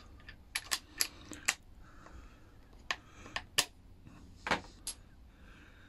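Light metallic clicks of steel hex-shank screwdriver bits being handled and pushed into a magnetic bit holder in an impact driver's quick-release chuck, about ten sharp clicks at uneven intervals.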